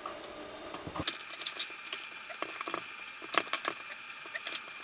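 Irregular light metallic clicks and clinks, as of small tools and engine parts being handled, over a faint steady high-pitched tone.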